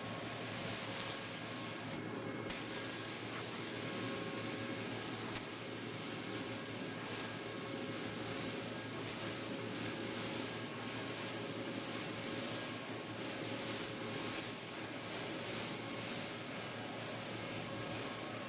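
Gravity-feed spray gun spraying clear coat onto a car panel: a steady hiss of compressed air and atomised paint, with a short break about two seconds in.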